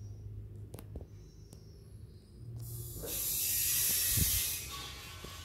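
A hissing noise that swells in a little over two seconds in, is loudest for about a second and a half, then fades away near the end.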